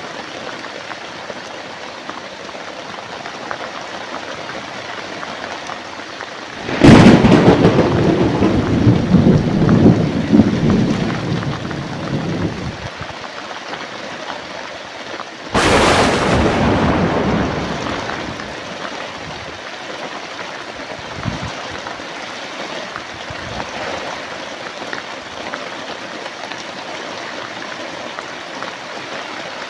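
Steady rain falling throughout, with two thunderclaps. The first comes about seven seconds in and rumbles on for several seconds. The second, sharper clap comes about halfway through and dies away over a couple of seconds.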